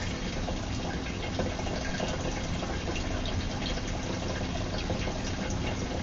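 Aquarium water in a red-eared slider turtle tank: a steady trickling and splashing, like a filter outflow running into the tank.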